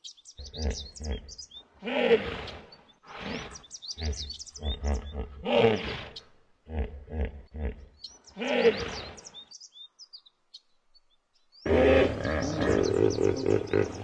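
Hippopotamus calling: three runs of deep, pulsing grunts, each building to a loud honk, with birds chirping in the background. After a gap of about two seconds, a louder, denser call starts near the end.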